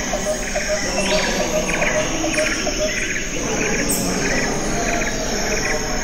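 Rhythmic chirping of crickets and birds: short higher chirps repeat about twice a second, over a run of lower peeps about four a second that stops about halfway through.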